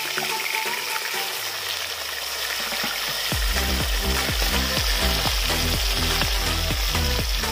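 Whole fish sizzling as they fry in hot oil in an aluminium wok, turned now and then with a metal spatula. Background music plays underneath, its bass beat coming in about three seconds in.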